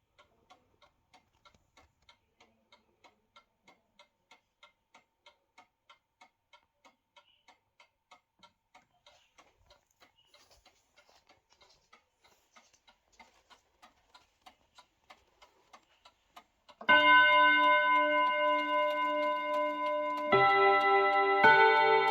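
Karl Lauffer mantel clock ticking faintly and evenly, about three ticks a second. About three-quarters of the way through it begins to chime, loud ringing notes struck one after another, much louder than the ticking.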